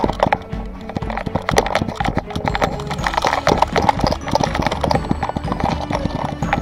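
Action camera strapped to a running dog's harness knocking and rattling with every stride, a dense irregular clatter of thuds and clicks.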